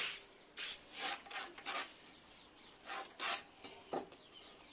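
A pencil scratching marking lines across a wooden door-frame piece against a steel try square, with the square sliding on the wood. It comes as a series of short scratchy strokes, grouped about a second in and about three seconds in.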